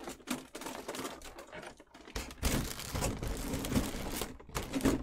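Cardboard and plastic statue packaging being handled, giving rapid, irregular clicks and crinkles that get busier about halfway through.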